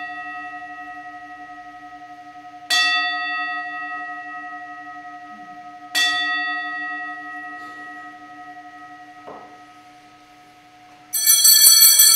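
Altar bell rung for the elevation of the chalice at Mass: single strokes about three seconds apart, each ringing and slowly fading. Near the end a cluster of small altar bells is shaken, jingling loudly.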